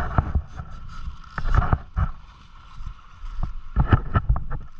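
Dirt bike fording a river: the engine revs in loud surges with water splashing around it, at the start, about a second and a half in, and again near the end, over a steady rush.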